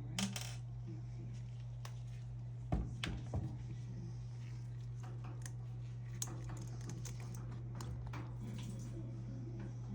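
A few sharp clicks and knocks of hands and tools working on a washing machine during a water inlet valve replacement, the loudest a cluster about three seconds in, over a steady low hum.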